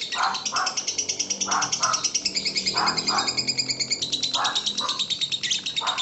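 Lovebird's long unbroken chattering song (ngekek): a fast high rattling trill of about ten notes a second. Under it, a lower double note repeats about every second and a half.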